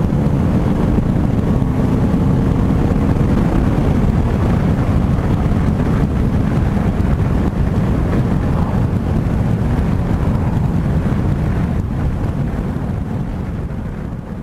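Wind rushing over a helmet-mounted camera's microphone on a moving motorcycle, with the KTM RC390's single-cylinder engine faintly underneath. The sound fades out over the last couple of seconds.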